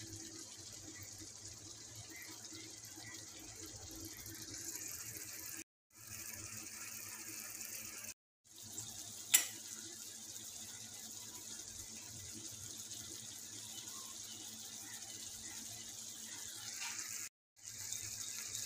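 Chicken pieces sizzling as they fry in oil in a pan, a steady hiss broken by three short silences. A single sharp click about nine seconds in is the loudest moment.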